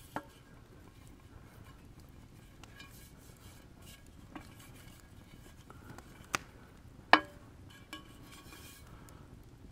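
Metal cooking pans being handled, with a few sharp clinks and knocks, the loudest about seven seconds in.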